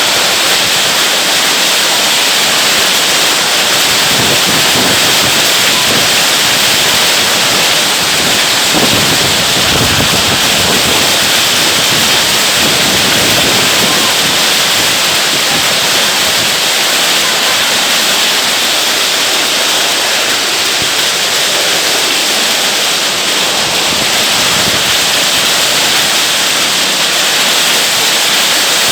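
Hailstorm: hailstones and heavy rain pelting down in a dense, steady, unbroken clatter.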